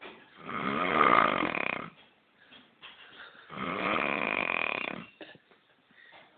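A man snoring loudly and roughly, like an old or broken-down truck: two long snores about three seconds apart, with the next one beginning at the very end.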